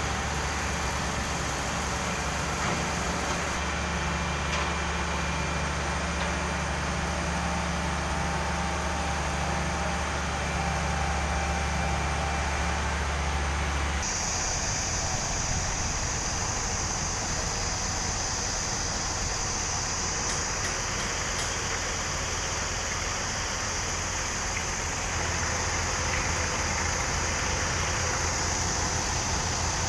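Heavy diesel engine running steadily at idle, a low, even hum, such as a truck-mounted mobile crane's engine. About halfway through the sound shifts abruptly and a steady high hiss joins the hum.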